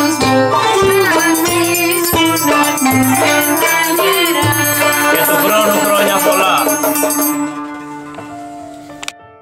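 Greek New Year carol (kalanta) played live on kanonaki, clarinet and toumbeleki drum, with a triangle ringing throughout. About seven and a half seconds in the tune ends on a held note that fades away.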